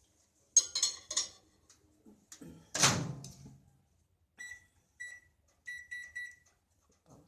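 Microwave oven handled mid-roast: a few sharp clicks and clatter, then a loud heavy knock about three seconds in, like the door shutting. After that come a series of short electronic beeps from the oven, some single and some in quick runs.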